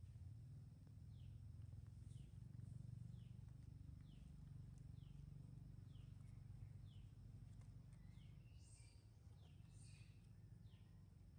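Faint outdoor ambience: a bird gives short, falling chirps about once a second, with two louder calls near the end, over a low rumble.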